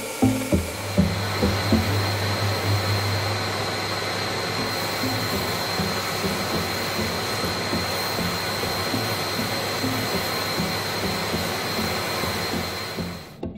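Handheld orbital sander running steadily with a high whine while it sands a wooden knife blade; it starts about a second in and stops abruptly near the end.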